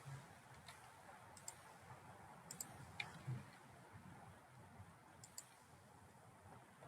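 Near silence with a few faint computer mouse clicks, some of them in quick pairs like double-clicks.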